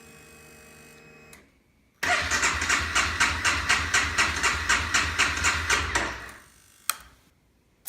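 Honda CBR250 motorcycle's electric starter cranking the engine in a rhythmic pulse for about four seconds without it catching: the bike won't start. The cranking is preceded by a short steady electric hum and followed by a click.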